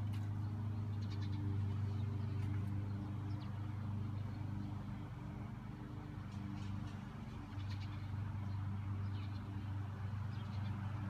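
A steady low hum of a running motor, dropping back briefly about halfway through, with faint short high-pitched chirps now and then.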